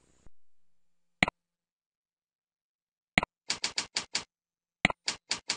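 A computer mouse click about a second in, then twice a sharper click followed by a quick run of four keyboard keystrokes: text being typed into web form fields.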